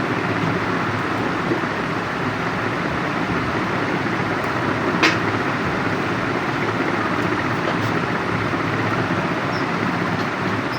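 Steady rushing background noise, with a single sharp click about five seconds in.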